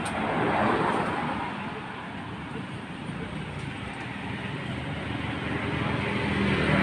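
Street traffic noise: a steady wash of passing vehicles, with a motor vehicle's engine growing louder near the end.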